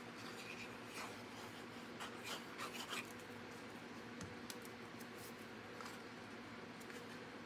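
Tip of a liquid glue bottle scratching across cardstock in short strokes, loudest a couple of seconds in, then a few faint paper taps as a card panel is laid down and pressed.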